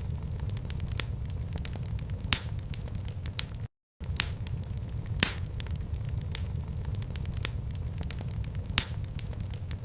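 Fireplace fire crackling: a steady low rumble with scattered small crackles and a few sharp pops, the loudest about two, five and nine seconds in. The sound cuts out completely for a moment a little under four seconds in.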